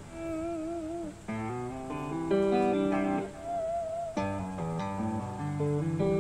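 Background music on plucked guitar: chords and melody notes changing about once a second, some held notes wavering.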